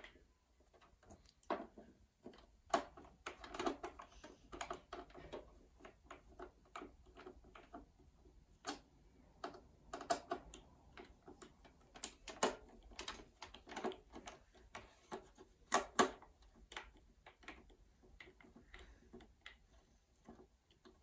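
A hand screwdriver turning screws out of the underside of a turntable's base: irregular small clicks and scrapes of the tip working in the screw heads.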